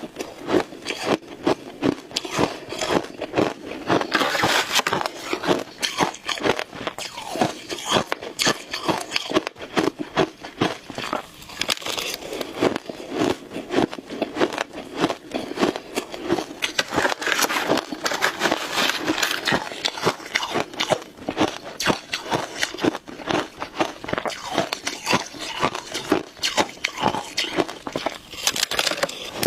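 Shaved ice being bitten and chewed close to the microphone: dense, irregular crunching and crackling, several bites a second.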